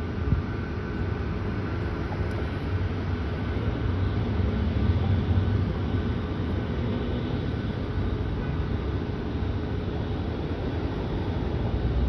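Steady low rumble of jet aircraft engines, with a faint thin whine held above it.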